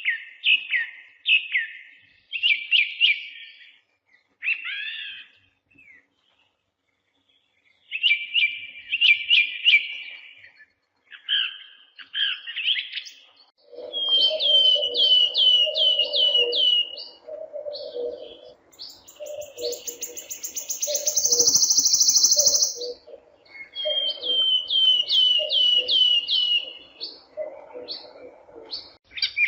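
Birds chirping and singing in quick series of high chirps, broken by short gaps. About halfway in, a lower run of repeated notes joins, and a high buzzing trill sounds for a few seconds after that.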